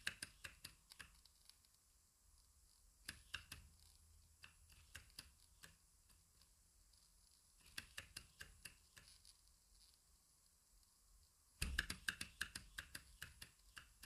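Small Hog Motor Stirling engine running, its moving parts clicking in quick runs of about five clicks a second with short pauses between the runs.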